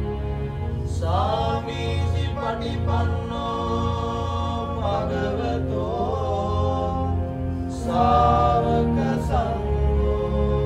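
Music: a solo voice singing a slow, chant-like melody that slides up into its notes, over a low droning accompaniment.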